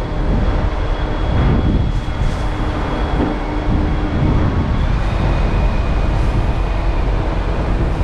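CLAAS Axion 930 tractor's six-cylinder diesel engine running steadily, with a thin high whine over it that drops in pitch about five seconds in.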